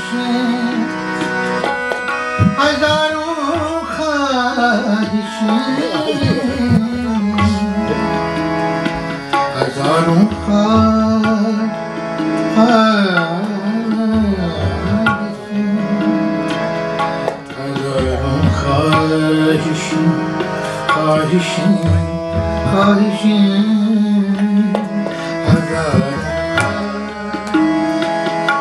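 Ghazal performance: a male voice singing long gliding, ornamented runs with no clear words, over sustained harmonium chords and tabla, the tabla's bass drum giving deep strokes at intervals.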